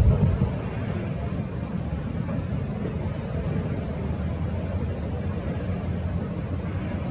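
Distant Boeing 737 jet engines: a low, steady rumble as the airliner rolls out along the runway after landing, with a brief louder surge right at the start.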